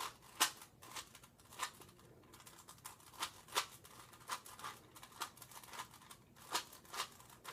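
Faint, irregular clicks and taps of a plastic 3x3 Rubik's Cube being handled, roughly one or two a second.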